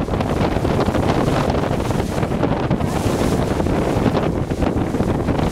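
Wind buffeting the microphone on a boat at sea: a steady, loud rush heaviest in the low end, with no distinct splash or blow standing out.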